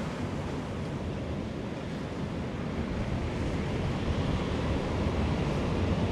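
Surf washing onto a rocky shore, with wind buffeting the microphone. A steady rush that swells a little louder in the second half.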